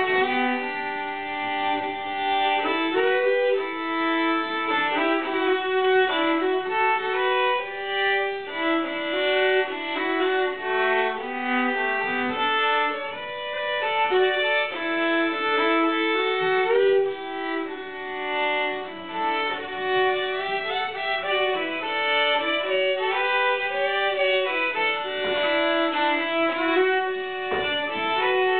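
Two fiddles playing a Shetland fiddle tune together, a quick unbroken run of bowed notes.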